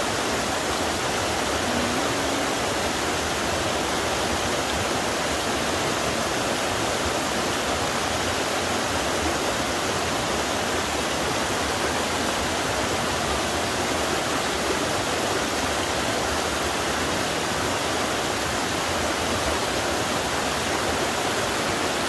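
A shallow, boulder-strewn forest stream running over rocks and small cascades: a steady, even rush of water.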